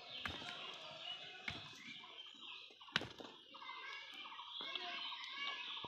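Two goats butting heads: a few sharp knocks as their heads clash, the loudest about three seconds in. Birds chirp in the background.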